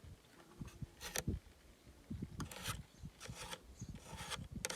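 Faint handling, rubbing and scraping as solidol grease is smeared by hand onto the spring of a car door mirror's mechanism to cure a squeak, with a few short sharper scrapes.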